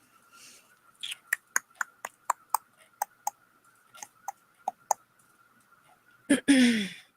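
A run of about a dozen sharp clicks or taps, roughly three a second, then near the end a short loud vocal noise that falls in pitch, mixed with breath noise. A faint steady high whine runs underneath.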